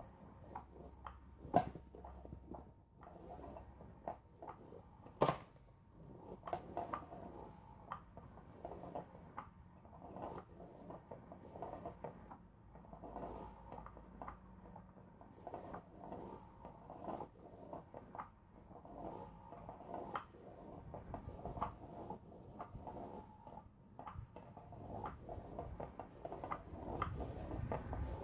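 Battery-powered Undercover Mouse cat toy running: its wand sweeps under the nylon fabric cover, making soft, irregular rustling with light clicks. Two sharper clicks stand out near the start.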